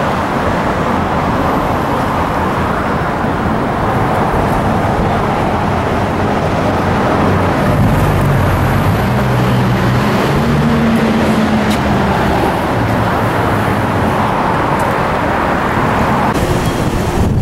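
Steady road traffic noise from vehicles crossing the bridge alongside, with a heavier vehicle's low engine hum rising over it for a few seconds in the middle.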